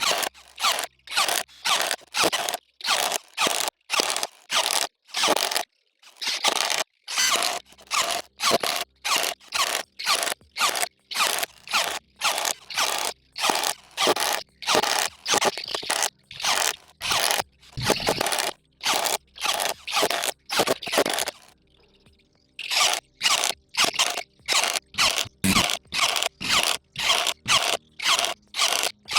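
Cordless impact driver hammering in short, rapid bursts, about two or three a second, with a couple of brief pauses.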